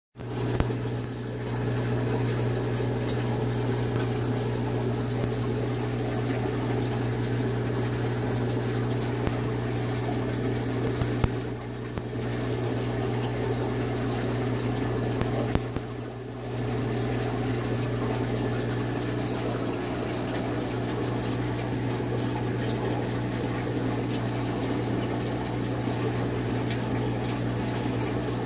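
Aquarium pump running with a steady hum over a constant wash of moving water. The sound dips briefly twice, around the middle.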